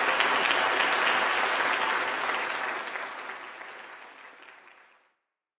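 Audience applauding: steady clapping that fades away over the last two seconds and then stops.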